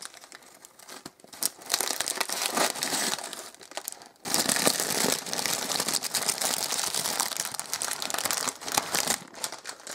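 Orange cellophane gift wrap crinkling and rustling as hands pull it open around a wrapped present, with a short pause about four seconds in.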